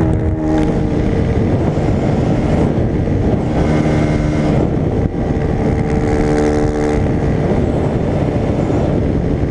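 Suzuki RM-Z250 dirt bike's 250cc four-stroke single engine running at road speed, its note standing out at moments over steady wind rush on the microphone.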